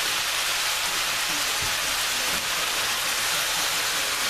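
Steady sizzling hiss of chopped asparagus, onion and garlic sautéing in saucepans on an electric stovetop.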